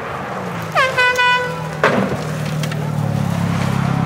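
A horn sounds in about three short blasts, its pitch dropping as the first one starts, followed by a single sharp crack. Then a rally car's engine grows steadily louder as the car approaches on the gravel stage.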